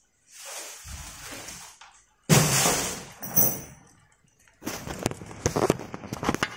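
Phone microphone handling noise as the phone is moved against a hoodie. There is a sudden loud rustle or knock about two seconds in, another a second later, then a run of irregular clicks and rustles near the end.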